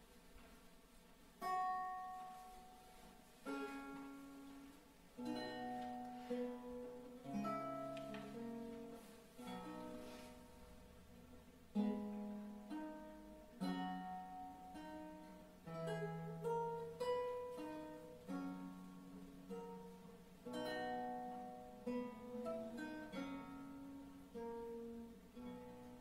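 Renaissance lute playing a slow piece: single notes and chords plucked and left to ring, starting about a second and a half in.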